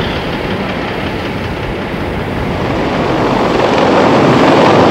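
A three-engine MH-53E Sea Dragon helicopter's rotors and turbines running as a dense, steady noise that grows louder about three seconds in.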